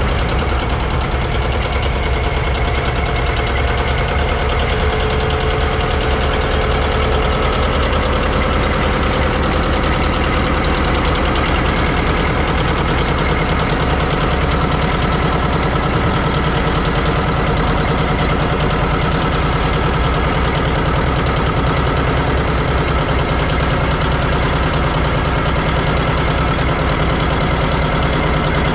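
John Deere 830's two-cylinder diesel engine running steadily at low speed with an even, rapid beat.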